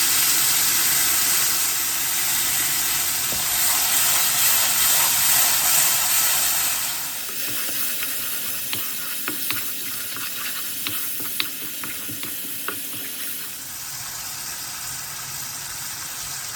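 Onion, garlic and ginger paste and spices sizzling in hot oil in a pan as the masala is fried and stirred. The sizzle is loud for about seven seconds, then drops to a softer hiss with scattered clicks of the stirring utensil against the pan. A quieter, steady hiss follows near the end.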